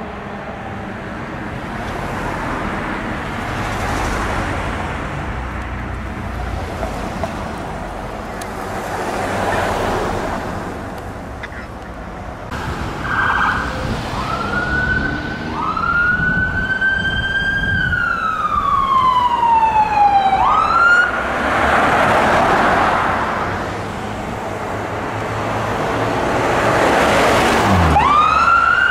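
Heavy fire engine pulling away, giving a steady engine and road noise. After that, an electronic emergency-vehicle siren approaches: a wail that rises, falls slowly and switches to a fast yelp. A louder rush of vehicle noise follows, and the siren's yelp starts again as an ambulance goes by near the end.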